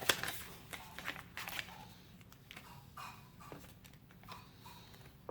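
Paper instruction leaflet being unfolded and handled: a sharp snap right at the start, then scattered crinkling and rustling that grows fainter.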